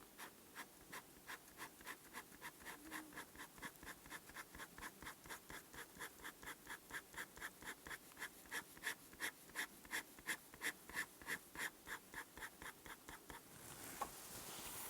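PenBBS 487 fountain pen nib scratching across paper in quick, even hatching strokes, about three to four a second, getting louder after the middle. Near the end comes a single click, then a rising hiss.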